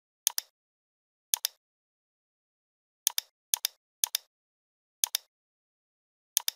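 Computer mouse button clicked seven times at uneven intervals, each click a sharp double tick of the button pressing and releasing, with dead silence between.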